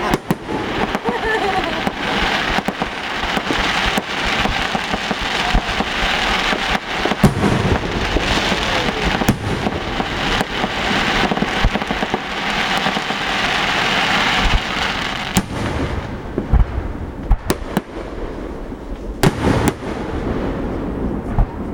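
Fireworks display: a rapid string of shell bursts over a dense crackling wash, with deep booms about seven seconds in and again near the end. The crackle thins out after about fifteen seconds, leaving separate bangs.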